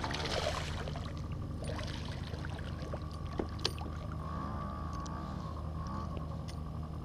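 Water lapping against a kayak hull over a steady low hum, with two light clicks about three and a half seconds in.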